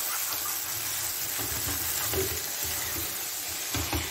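Mutton pieces in green masala sizzling in oil in a nonstick pan, the oil separated out at the end of the frying, with a spatula stirring and knocking against the pan a few times.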